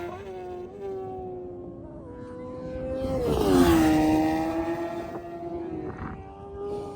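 High-revving engines of vehicles lapping the race track. One passes close about three seconds in, getting louder and its pitch dropping as it goes by, and then its engine note holds steady and fades.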